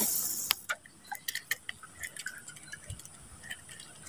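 A spinning-rod cast: line hissing off the reel, fading out in the first half second. Then a string of faint, irregular ticks and drips as the lure is worked back across the swamp water.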